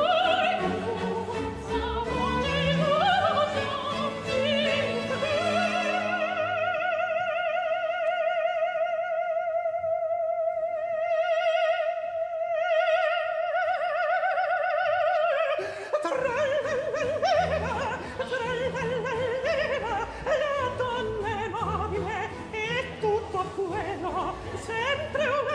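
Countertenor singing a Baroque opera aria with period-instrument orchestra. About six seconds in, the voice holds one high note with wide vibrato for nearly ten seconds over sparse accompaniment. It breaks off, and the voice and orchestra go on with quicker runs.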